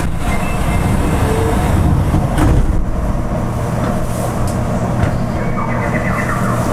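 Fukuoka City Subway Nanakuma Line linear-motor train running through a tunnel, heard from inside the rear cab: a steady rumble with a low hum and a few sharp clicks from the wheels on the track.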